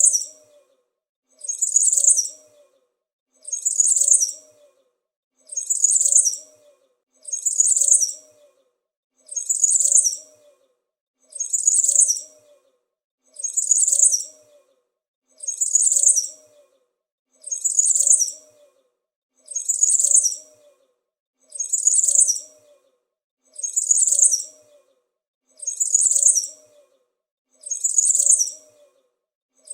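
A small bird chirping in short, high-pitched bursts. The same burst repeats about every two seconds with silence between, like a looped recording.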